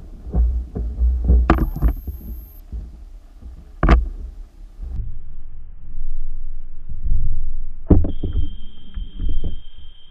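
Underwater rumble with irregular knocks and clicks, as picked up by a submerged camera's microphone. A thin steady high tone sounds briefly around the second mark, and another steady tone comes in about eight seconds in and holds.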